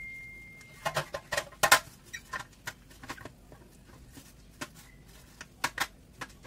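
A brush spreading oil over a metal baking tray: irregular scratchy strokes and light taps on the metal, bunched about a second in and again near the end. A faint ringing tone fades out at the very start.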